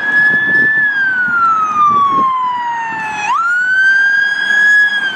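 Siren wailing: a high tone that falls slowly for about two and a half seconds, then sweeps quickly back up a little past three seconds in and holds before starting to fall again.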